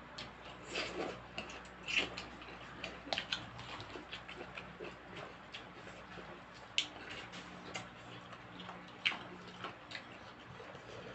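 Eating sounds: irregular small clicks and taps of utensils against a bowl, with chewing, over a faint steady hum.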